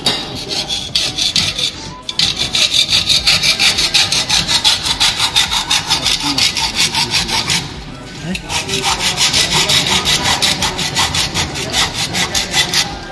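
Hand hacksaw cutting through a square steel tube held in a bench vise: fast, even rasping strokes back and forth. There is a short pause about two seconds in and another, longer one around eight seconds.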